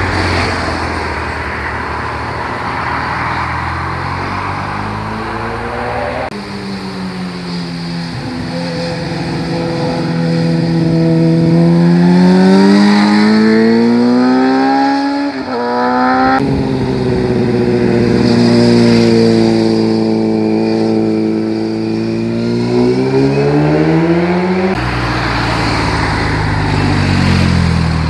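Vehicles passing close on a winding road in separate passes. First a car goes by with a rushing noise. Then motorcycle engines rise steadily in pitch as they accelerate out of the bends, each pass breaking off abruptly.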